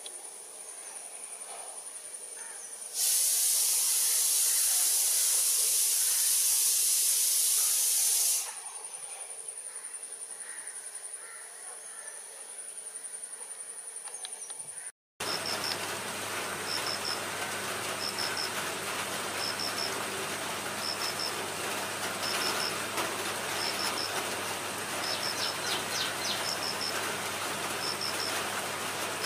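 Insects trilling steadily, with a loud high-pitched insect buzz for about five seconds. Then, after a sudden break, steady rain falling on leaves, with a short double chirp repeating about once a second.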